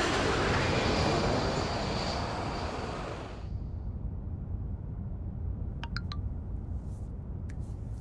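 Jet airliner passing low on landing approach: a loud rushing roar with a faint high whine that dies away about three and a half seconds in. It gives way to the steady low rumble of a car interior on the move, with a few short high electronic tones about six seconds in and some soft clicks.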